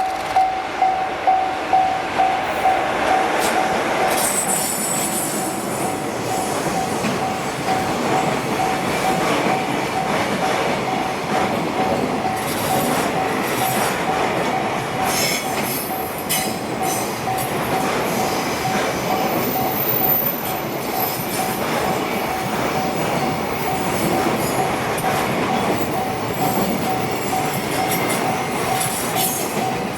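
Freight train passing a level crossing: continuous rumble and rattle of wagon wheels on the rails, with high wheel squeals now and then. Under it the crossing's warning bell keeps ringing, about two dings a second, clear at first and then mostly drowned by the train.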